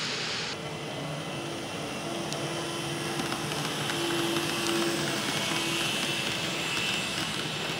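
Model diesel locomotives, two Life Like SD7s and two Atlas GP9s, running past with their small electric motors humming and whining, strongest about four to five seconds in. Faint ticks come from the wheels on the track. A steady hiss cuts off about half a second in.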